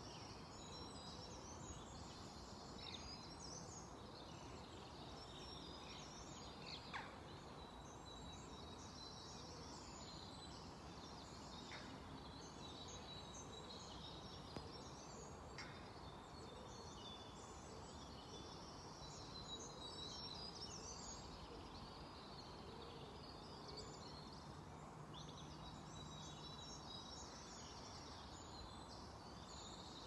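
Several songbirds chirping and singing faintly in the trees, with many short calls and phrases overlapping throughout. Underneath is a steady low background noise.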